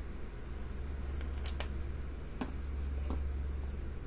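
A few light metallic clicks as the levers and spacers of a lever lock are handled and lifted out during disassembly, over a steady low hum.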